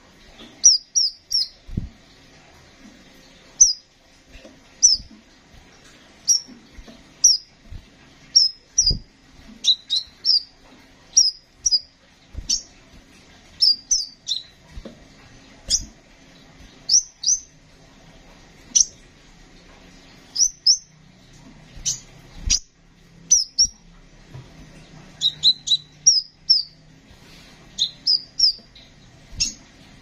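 Male sunbird calling with short, sharp, high chirps, singly and in quick runs of two or three, every second or so throughout. A few soft low thumps come between the calls.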